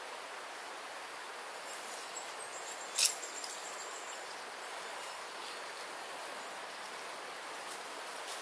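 Steady outdoor hiss of insects and gently flowing stream water, with one sharp click about three seconds in.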